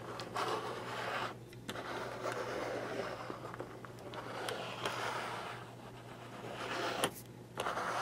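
Small plastic toy car's wheels rolling and scraping over a smooth hard surface as it is pushed back and forth by hand. The rasp swells and fades over several passes, with short pauses and a couple of brief clicks.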